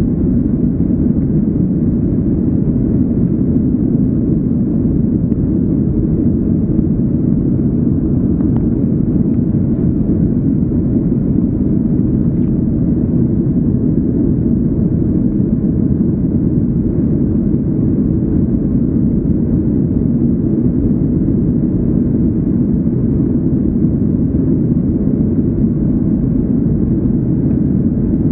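Cabin noise inside a Boeing 737-800 climbing after takeoff: the steady, deep rumble of its CFM56-7B turbofan engines and the airflow over the fuselage.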